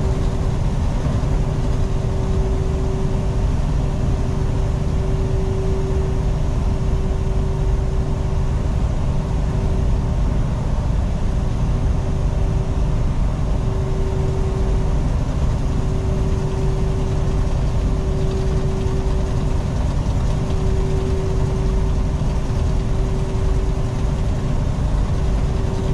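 Semi-truck cab at highway cruising speed: a steady low engine and road drone with a humming tone that swells and fades every few seconds.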